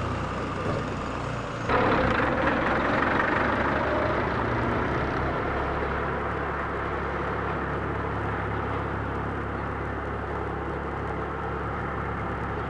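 Steady hum of a motor vehicle engine running. About two seconds in, a louder noise starts suddenly and eases off over the next few seconds.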